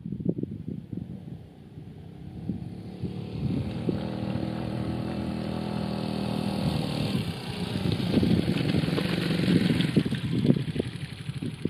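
Beta Alp trail motorcycle's single-cylinder four-stroke engine pulling under load up a steep rocky track, growing louder as it approaches, with irregular knocks and crackle over it.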